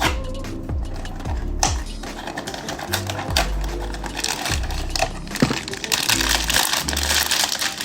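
Blind-box packaging being handled and opened: rapid clicks and rustling of cardboard and plastic, turning into dense crinkling for the last couple of seconds, over background music with a bass line.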